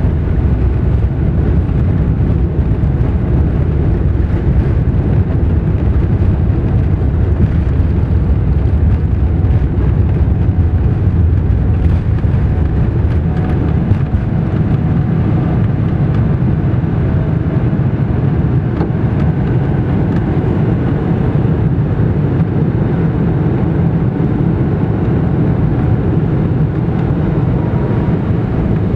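Cabin roar of a Boeing 777-300ER's jet engines at takeoff thrust, heard from a window seat over the wing: a loud, steady deep rumble with faint steady whining tones above it. The deepest rumble eases a little about halfway through as the airliner lifts off and climbs.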